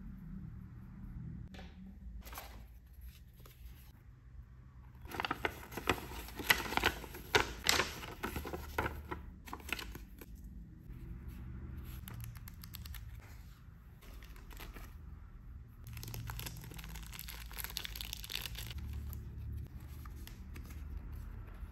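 Paper and plastic packaging being handled, crinkling and tearing in two louder spells, one a few seconds in and another about two-thirds of the way through, with quieter rustling between.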